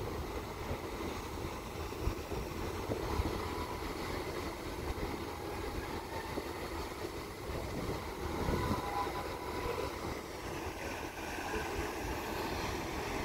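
Steady rumble of a ro-pax ferry's engines and machinery heard from an open deck, mixed with wind on the microphone, as the ship gets under way. The rush of churned water from the propeller wash grows a little stronger near the end.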